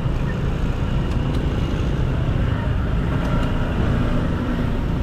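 Steady road and engine noise heard from a motorcycle crawling through a traffic jam, with the surrounding vehicles running close by.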